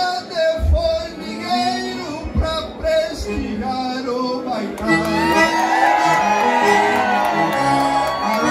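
A man singing improvised gaúcho verses into a microphone over instrumental accompaniment. About halfway through his voice gives way to the crowd cheering and whooping while the music plays on.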